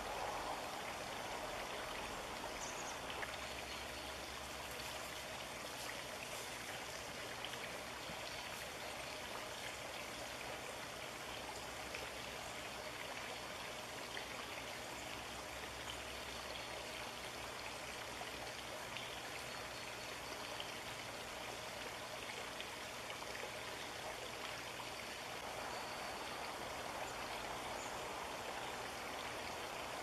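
Steady rushing of running water with no distinct events.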